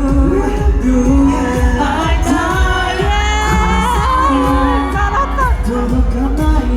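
Live J-pop performance through a concert sound system: a male vocal group singing over a pop track with heavy bass.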